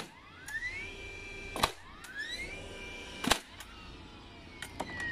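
Battery-powered DeWalt framing nailer driving two nails into timber, about a second and a half apart. Before each shot the motor's whine rises and levels off as it spins up, then the nail goes in with a sharp bang. After the second shot the whine falls slowly as the motor winds down, with a couple of light clicks near the end.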